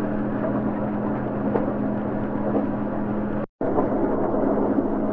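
Interior running noise of a KiHa 283 series diesel express train under way: a steady rumble with a low, even engine drone. It cuts out for a split second about three and a half seconds in, then carries on the same.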